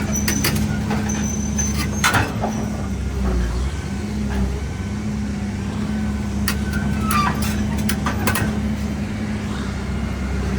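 Heavy diesel engine of a large construction vehicle running steadily at low revs, with a few metallic clanks and knocks about two seconds in and again in the second half.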